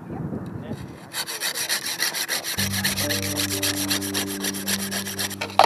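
Handsaw cutting through a sea-ice core: a fast, even rasping that starts about a second in. A low, steady music drone comes in about halfway through.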